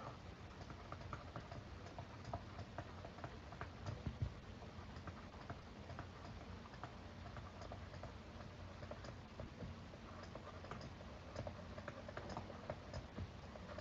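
Faint, irregular clicks and scratches of a stylus handwriting on a tablet.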